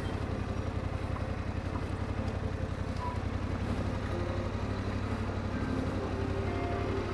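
Yamaha Ténéré 700's parallel-twin engine running steadily as the motorcycle is ridden.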